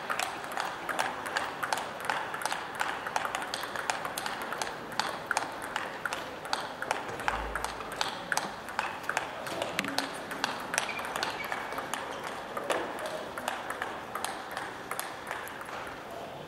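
Table tennis warm-up rally: the ball clicking off rubber-faced paddles and bouncing on the table, several sharp clicks a second. The clicks thin out near the end as the rally stops.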